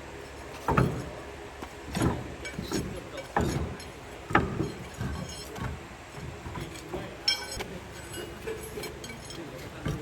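Irregular metal clanks and knocks from hand-tool work, about four sharp strikes in the first half, then a brief high-pitched metallic ring about seven seconds in.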